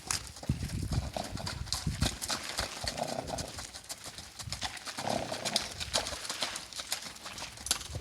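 Icelandic horse's hooves clip-clopping at a quick, irregular beat, with the odd, funny noise the horse makes after being run, heard around three and five seconds in.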